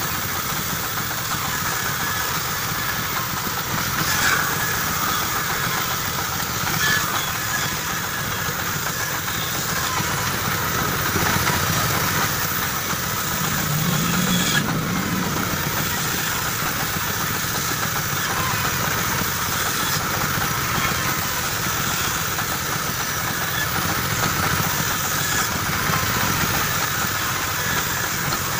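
Band saw running steadily while cutting along a curve through a thick wooden plank, sawing out a curved chair leg.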